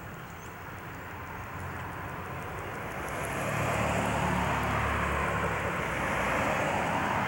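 A motor vehicle running on the road close by, its engine rumble and road noise swelling about three seconds in and then holding steady.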